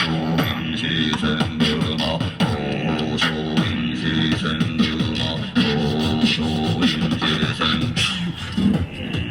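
Beatboxing: a person's vocal percussion, quick sharp kick- and snare-like strokes over a pitched hum, with repeated falling bass slides.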